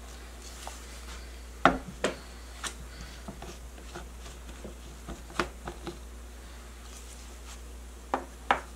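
Hard plastic clicks and knocks from handling a bullet-style blender: the cup lifted off the motor base, the blade unit unscrewed from the cup and the cup set down on a wooden board. The loudest knocks come about a second and a half in and twice near the end.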